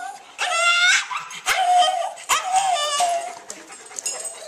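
Small Pekingese-type dog whining and yipping in excitement at the prospect of a walk: a string of four or five high cries, the first and longest about half a second in, its pitch rising.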